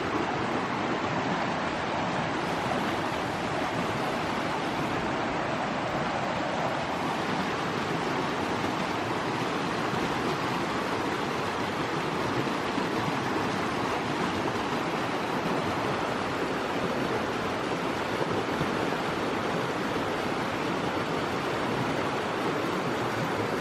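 Mountain creek water rushing steadily, an even unbroken roar of flowing water.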